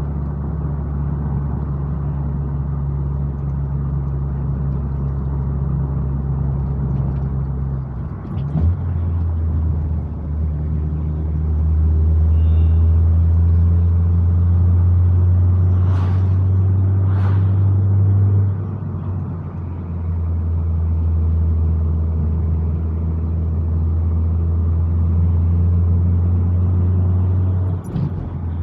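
Car engine and road noise while driving uphill: a steady low drone that drops in pitch about eight seconds in, with two sharp clicks about halfway through.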